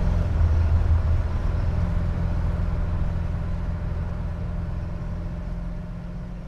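Interior drive noise of a 1967 Ford Mustang with a Blue Print Engines 302 V8: steady engine and road rumble heard from inside the cabin at highway cruise, fading out gradually.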